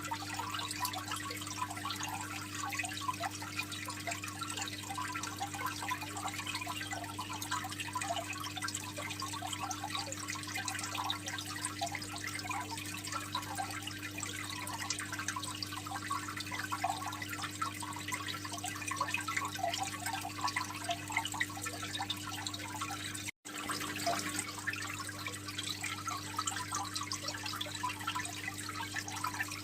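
Water trickling and splashing continuously in a freshwater aquarium, a dense patter of small drips, over a low steady hum. The sound cuts out for a split second about two-thirds of the way through.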